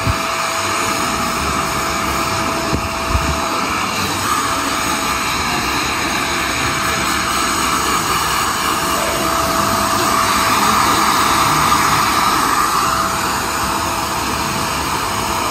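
Handheld hair dryer blowing steadily while drying hair, a steady rush of air with a thin whine running through it, a little louder about two-thirds of the way through.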